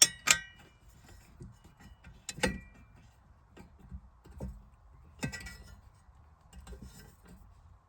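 Allen wrench tightening M5 screws into a metal cup-holder bracket: sharp metallic clicks and clinks, the loudest right at the start, about two and a half seconds in and about five seconds in, with faint taps between.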